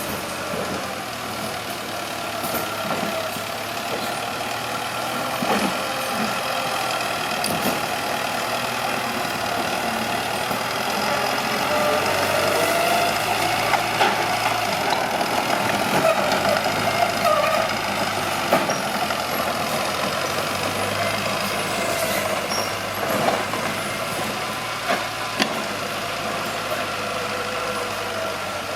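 Mitsubishi BD2H bulldozer's diesel engine running under load, getting louder and shifting in pitch through the middle as it works harder, with scattered sharp knocks and clanks.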